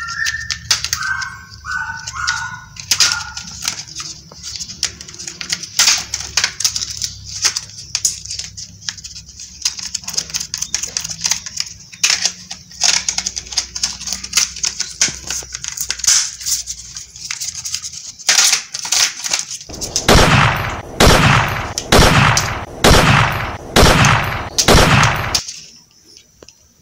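Toy gun sounds: a short electronic beeping tune, then scattered clicking, then a run of loud gunshot-like blasts, several in quick succession, near the end.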